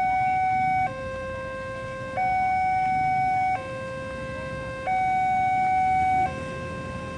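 Railroad level-crossing warning alarm sounding a steady two-tone signal, a higher tone and a lower tone alternating about every 1.3 seconds, the signal that the crossing is closed for an approaching train.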